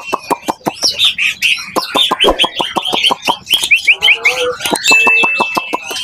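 Caged songbirds singing loudly: a fast run of sharp, repeated chirps and clicks, with one long, steady whistled note about five seconds in.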